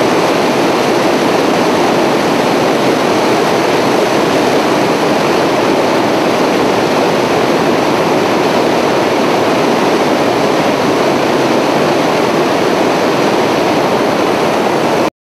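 Steady engine and airflow noise of an aircraft in flight, recorded from on board: an even roar with no distinct tone or beat. It cuts off suddenly near the end.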